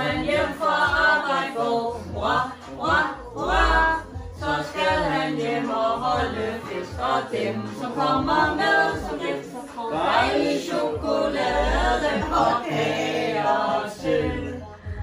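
A group of people singing a birthday song together without any instruments, line after line with brief breaks.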